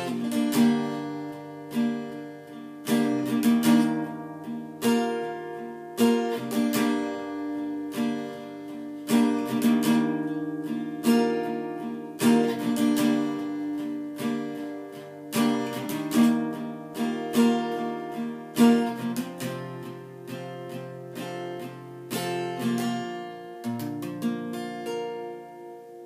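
Acoustic guitar strummed and picked in an instrumental passage, with no singing, the chords fading out near the end.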